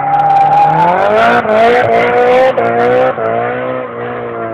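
Drift car's engine revving hard through a slide, its pitch climbing about a second in and then held high with a few brief dips, over screeching tyres.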